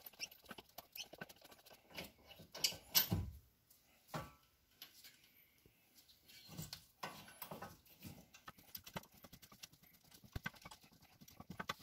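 Faint, irregular metallic clicks and taps, with a few louder knocks, as the front brake caliper bracket bolts are unscrewed by hand and handled.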